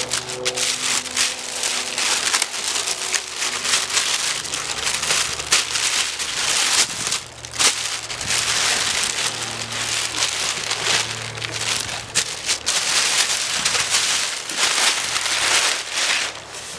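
Large clear plastic bag crinkling and rustling loudly in uneven handfuls as it is pulled off a wrapped item, with a couple of brief pauses; the noise dies down near the end.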